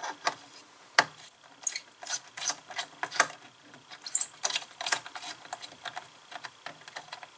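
Small screwdriver working the screw terminals of a control board as wires are fitted and tightened: a run of irregular light clicks and short scrapes.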